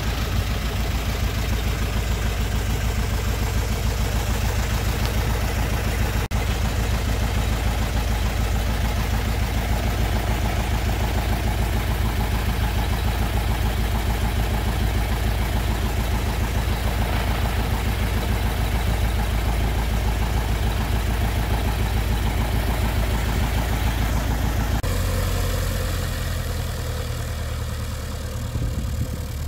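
A Spezio light airplane's Lycoming O-290 four-cylinder engine idling steadily with its propeller turning. About 25 seconds in, the sound shifts abruptly and drops a little as the plane taxis away.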